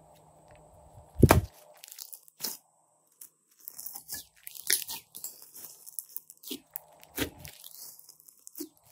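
Hands squishing and folding glossy slime, making a run of small sticky clicks and pops. A slab of it is slapped down with a loud thud about a second in, and there is a second thud near the end.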